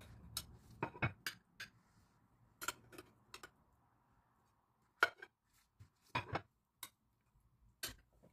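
Metal cake server clinking and tapping against a glass baking dish and a china plate while a slice is lifted out and served: a dozen or so sharp, scattered clinks, the loudest about five seconds in.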